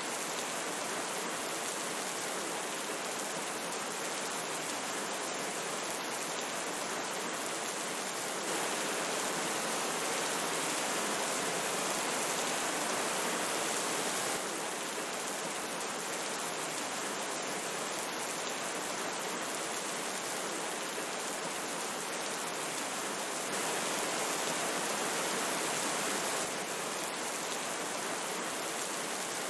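Steady rushing water of a flowing river mixed with falling rain, an even hiss with no distinct events. It gets slightly louder for a few seconds about a third of the way in and again near the end.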